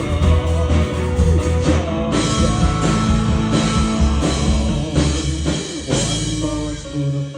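Rock band playing an instrumental stretch of the song, with drum kit, bass and guitar.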